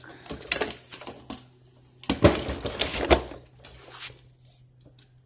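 Clattering and rustling of objects being handled and moved: a stretch near the start and a louder one about two seconds in, over a steady low hum.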